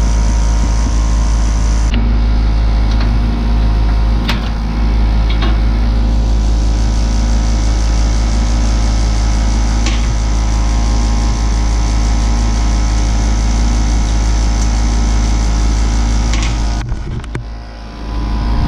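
Air-Flo central air conditioner's outdoor condensing unit running close by: the steady hum of its compressor and condenser fan. A few light clicks come as test probes are handled at the brass service valves, and the sound dips briefly near the end.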